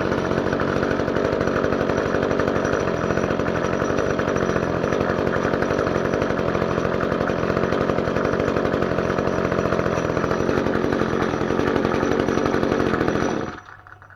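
Echo GT-225 string trimmer's small two-stroke engine running steadily, rebuilt with a new cylinder and piston, then shut off and cutting out suddenly near the end.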